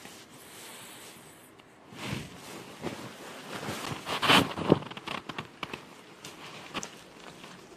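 Clothing and bedding rustling and scuffing as a person shifts and gets up off a bed, irregular and loudest a little past the middle.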